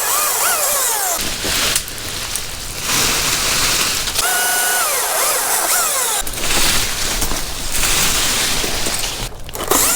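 Small chainsaw cutting branches from a holly tree. The engine revs up and drops back several times, holding high for about a second near the middle, with the noise of the cut running between the revs.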